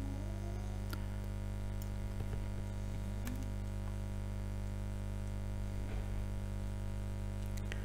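Steady electrical mains hum with a few faint, short clicks scattered through it.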